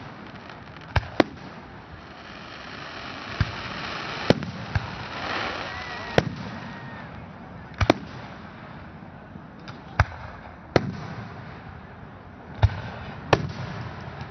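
Aerial firework shells bursting at a public display: about a dozen sharp booms at uneven intervals, with a swell of noise in the middle between bursts.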